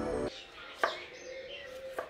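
Background music stops a moment in, followed by two sharp knife strokes on a wooden chopping board about a second apart. Birds chirp faintly in between.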